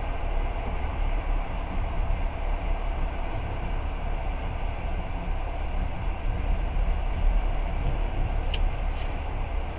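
Passenger train running at speed, a steady low rumble and rolling noise heard from inside the carriage, with a couple of faint clicks near the end.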